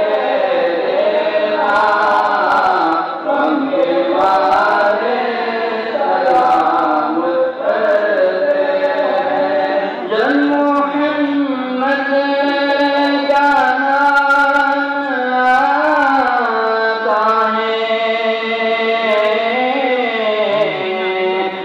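Devotional salaam being sung: voices chanting a slow melody in long, drawn-out phrases with held notes.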